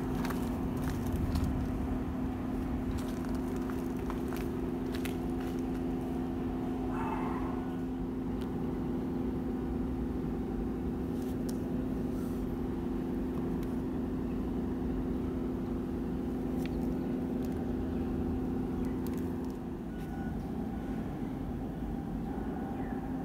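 A steady mechanical hum with a low rumble, easing a little near the end, with scattered faint clicks.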